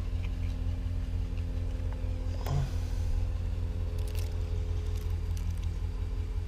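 Steady low rumble of an idling engine with a faint hum of steady tones over it, and a brief faint sound about two and a half seconds in.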